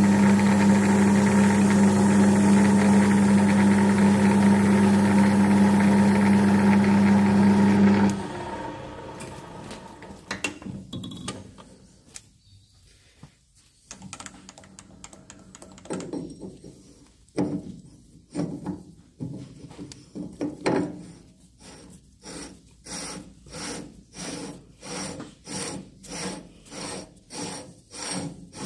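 A centre lathe runs with a steady, loud hum and stops abruptly about eight seconds in. Scattered knocks and handling sounds follow, and then, from around twenty seconds, an even rhythm of file strokes rasping on the metal work, about one and a half a second.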